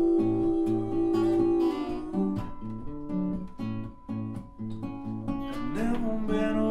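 Acoustic guitar playing the instrumental intro of a song, picked notes over a repeating low bass pattern.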